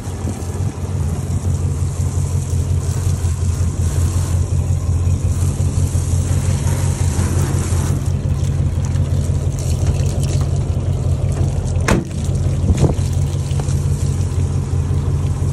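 1935 Ford flathead V8 running steadily while driving the fire truck's front-mounted water pump, with water spraying and splashing from the pump fittings and hose outlets. A single sharp click about twelve seconds in.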